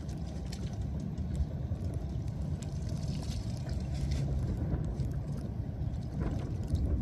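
Shallow floodwater splashing and wet debris rustling as gloved hands clear a clogged street storm drain, with short crackles and clicks over a steady low rumble.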